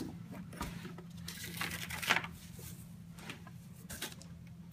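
Handling noise from a plastic socket-set case: a few light clicks and knocks, with a louder rustling scrape about two seconds in, over a steady low hum.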